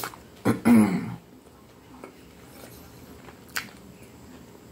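A woman's short throat-clearing cough about half a second in, a sharp onset followed by a brief voiced rasp with a slightly falling pitch. A single small click comes near the end.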